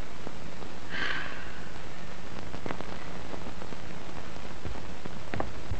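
Surface noise of a worn 1929 sound-film soundtrack: a steady hiss with a low hum and scattered crackles and clicks. A short higher-pitched sound comes about a second in.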